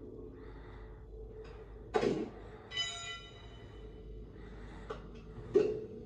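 Animated-film sound effects heard through a TV speaker in a room: a steady low machine hum with two sharp clanks, about two seconds in and again near the end, and a brief ringing metallic tone just after the first clank.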